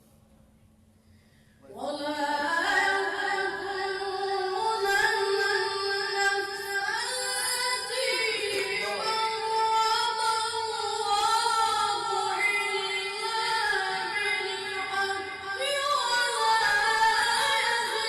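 Quran recitation in a high voice, melodic and drawn out, with long held, wavering notes. It begins about two seconds in, after near silence.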